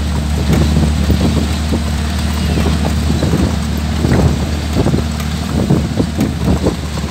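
Vehicle running on the road, heard from inside the cab: a steady low engine and road hum with many short, irregular knocks and rattles.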